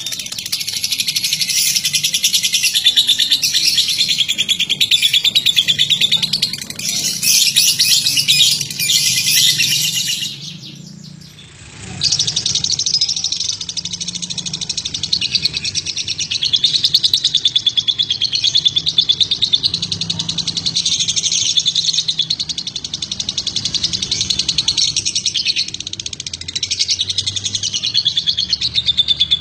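Caged lovebirds singing in a long, fast, unbroken stream of high chirps. The chatter drops away briefly about ten seconds in, then carries on.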